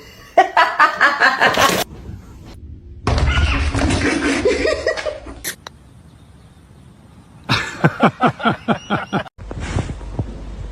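Bursts of human laughter, a run of rhythmic 'ha-ha' pulses, the last one falling in pitch, broken up by abrupt cuts between short clips.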